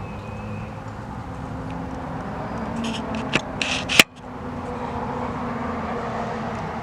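An engine running steadily, with a few scrapes and a sharp click about four seconds in.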